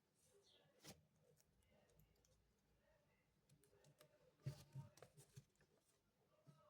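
Faint clicks and rustles of a small plastic toy and its packaging being handled: one sharp click about a second in, then a short cluster of clicks and rustling in the second half.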